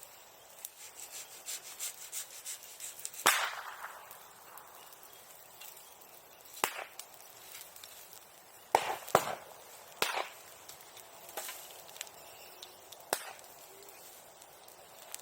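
Bonfire of wood and bamboo crackling: a patter of small crackles for the first three seconds, then about six sharp, loud pops at irregular intervals, like firecrackers going off.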